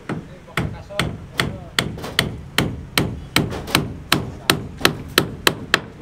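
Hammer striking the wooden beam formwork in a steady run of sharp blows, about three a second, as a worker nails it together.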